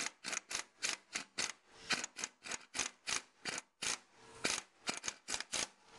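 Impact wrench on the Yamaha XS650's charging-rotor nut, fired in rapid short bursts about four times a second. It is tapping the nut tight to fully seat the new rotor on the crankshaft.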